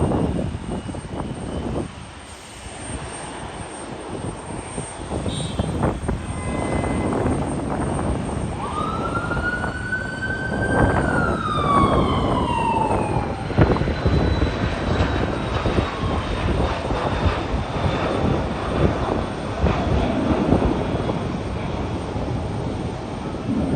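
Jet airliner passing close by: a steady engine rumble, with a high turbine whine that comes in about nine seconds in, holds, then drops steadily in pitch as the plane goes past.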